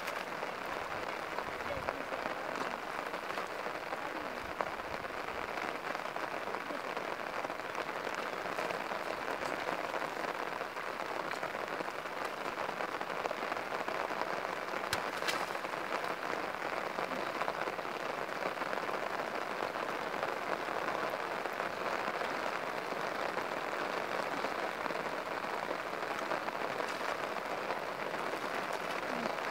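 Steady rain falling on a flooded field, an even hiss that holds without a break.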